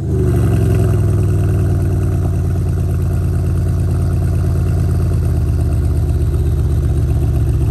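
Mercedes E550 V8 exhaust, fitted with aftermarket downpipes and a stage 2 tune, idling steadily on a cold start after a few blips of the throttle, heard right at the tailpipes.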